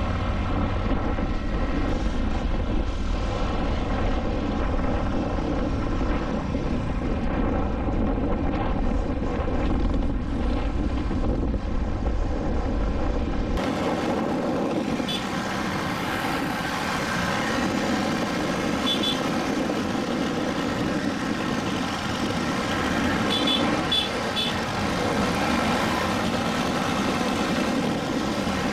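Motor scooter engine running with road and wind noise while riding along a road. There is a heavy low wind rumble that drops away abruptly about 13 seconds in, after which the traffic sound is thinner and brighter. A few short high chirps come near the middle and later on.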